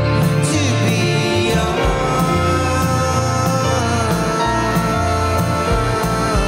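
Live rock band playing a song: electric guitars, bass and drum kit, with a cymbal struck on a steady beat and a sung vocal over it.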